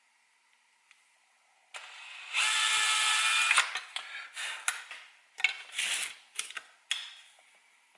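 Power drill with a small bit drilling pilot holes: it starts about two seconds in, runs steadily for about a second and a half, then comes in several short bursts.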